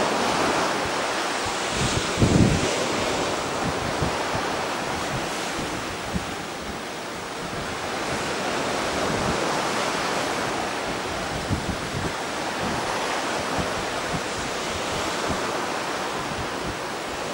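Ocean surf washing onto the beach in a steady rush, with wind buffeting the microphone in occasional low gusts, most strongly about two seconds in.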